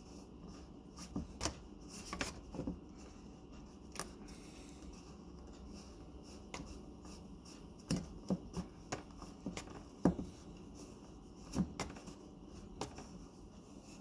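Scattered plastic clicks and light knocks from the Ninja blender's lid and jar being handled and fitted together, with no motor running.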